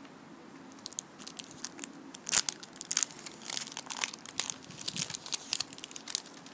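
Paper label being torn and peeled off a plastic surprise egg: a run of crinkling and tearing starting about a second in, with a sharp crack a little after two seconds.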